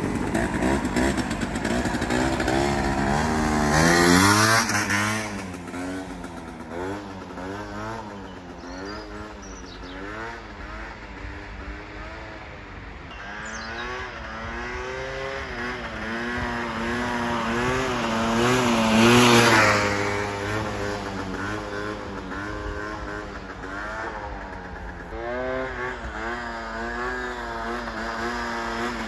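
Small scooter engine revving, its pitch rising and falling over and over as the throttle is worked. It swells loudest about four seconds in and again about nineteen seconds in.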